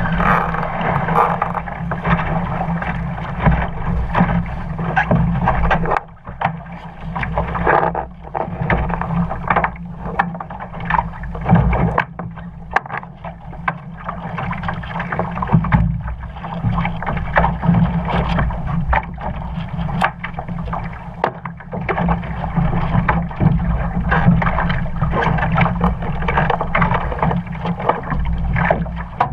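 Continuous water and wind noise aboard an RS Aero sailing dinghy, broken by frequent short knocks and rattles from the boat.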